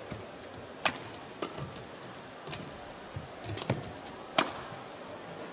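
Badminton rackets striking the shuttlecock in a rally: a string of sharp cracks a second or so apart, the hardest about a second in and near the end, over the steady murmur of an arena crowd.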